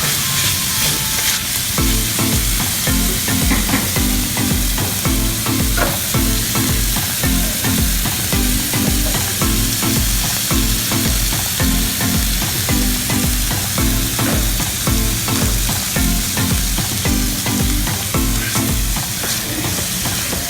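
Garlic chicken frying and sizzling in a pan as it is stirred. Background music with a steady beat comes in about two seconds in and stops near the end.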